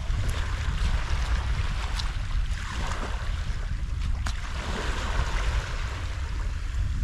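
Wind rumbling on the microphone over splashing water as a conger eel is held in the shallows for release, with a few sharp clicks.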